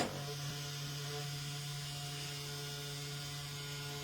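Steady electrical hum with a few faint steady tones above a stronger low one, unchanging throughout.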